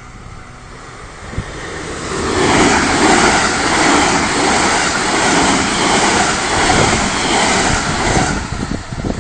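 Local electric train passing close by: the rumble of wheels on the rails builds over about two seconds, stays loud for about six seconds, then falls away near the end.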